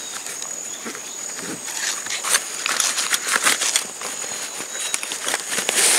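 Nylon backpack and tent bag rustling and scraping as a rolled tent is pushed into the pack's side and strapped, busiest in the middle. A steady high insect drone runs behind it.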